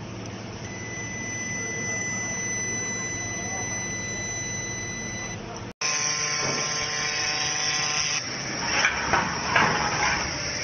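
Handheld fiber laser welding machine running with a steady hum and thin high whine tones. After a sudden cut about six seconds in, the hum continues with irregular hissing crackles as the laser welds a sheet-metal seam.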